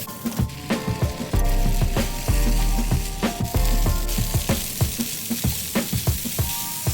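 Food sizzling in a frying pan during a glass-noodle stir-fry, a dense steady hiss, over background music with a steady beat.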